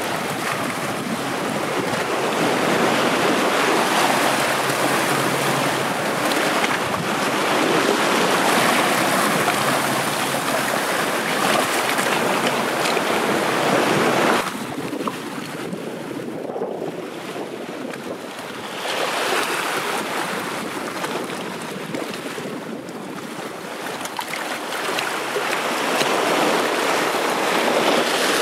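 Sea water washing and splashing over flat shore rocks: a steady rushing that drops suddenly quieter about halfway through and swells again near the end.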